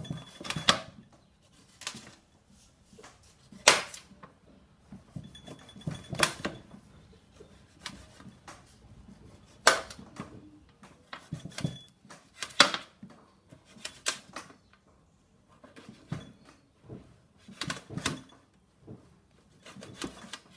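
A knife cutting a lemon into pieces on a cutting board: sharp knocks of the blade on the board at irregular intervals, about one every second or two, some in quick pairs.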